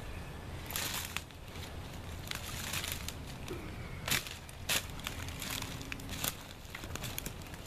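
Dry brush branches and twigs crunching and snapping under boots as they are trodden down onto a fire pit, with a series of sharp cracks, the loudest about four seconds in. A low wind rumble on the microphone lies underneath.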